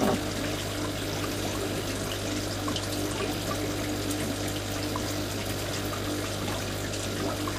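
Aquarium water trickling steadily, with a steady low hum underneath and faint scattered ticks.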